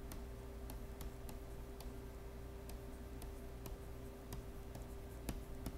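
Faint, irregular clicks of a stylus tapping on a pen tablet as words are handwritten, a few per second, over a steady low hum.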